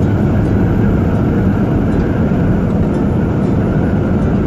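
Truck cruising at highway speed, heard from the cab: a steady, loud, low drone of engine and tyre noise with no changes.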